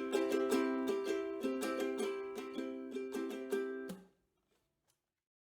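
Strummed acoustic string instrument playing the closing chords of a song, with repeated strums that fade and then cut off abruptly about four seconds in.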